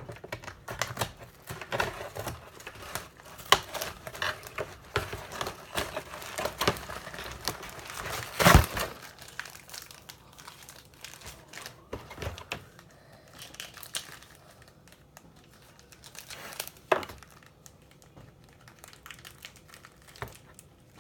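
Plastic packaging crinkling and crackling as it is handled and opened, with scattered clicks. It is busiest in the first half, with one louder crackle about eight and a half seconds in and another near seventeen seconds.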